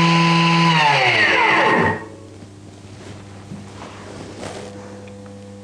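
Thermomix motor running at high speed milling buckwheat grain into flour, muffled by a kitchen roll in the lid. Its whine falls in pitch as it winds down and stops about two seconds in, leaving a low hum.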